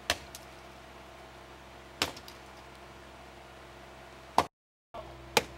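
Sharp, short strikes of a long-handled digging tool swung overhead into the trench bottom, four times about one to two seconds apart, the loudest near the end, over a steady low machine hum.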